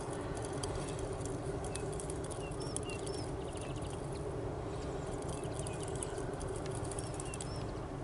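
Open-air grassland ambience: small birds chirp briefly now and then over a steady low background noise, with a couple of short runs of fast ticking.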